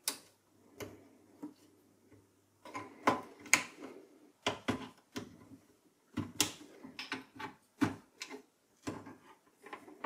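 Cable connectors and wiring clicking and knocking against a steel desktop PC case as power and data cables are plugged back onto the motherboard: irregular clicks and knocks, loudest about three seconds in.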